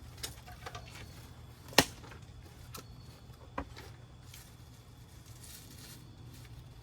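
A few sharp clicks and knocks as grill parts are handled during assembly, the loudest about two seconds in, over a low steady hum.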